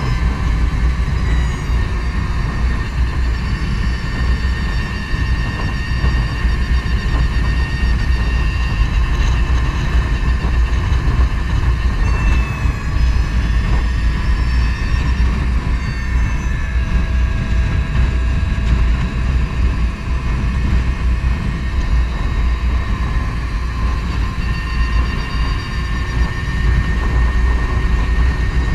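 2016 Energica Eva electric motorcycle underway: a steady wind rumble on the handlebar-mounted microphone, with the thin high whine of the electric drivetrain rising and falling slightly as road speed changes.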